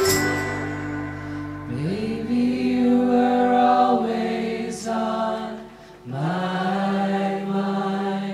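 The full band cuts off right at the start, leaving voices singing two long held notes, each one sliding up into the note, with little else under them.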